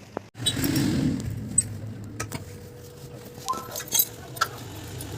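Light metallic clinks and taps of tools and parts being handled, over a steady low hum.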